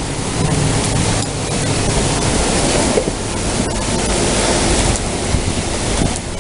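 Heavy thunderstorm rain pouring down steadily, with wind buffeting the microphone.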